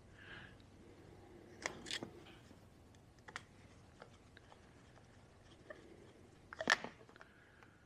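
Screwdriver turning the end-bell screws of a John Deere Model E magneto: a few scattered small metal clicks, with a louder cluster of clicks near the end.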